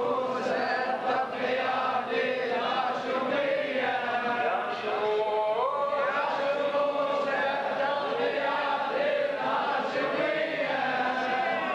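A crowd of men chanting a Muharram mourning lament together in a loud, sustained, melodic unison, with the pitch of the chant gliding up in a couple of steps about five seconds in.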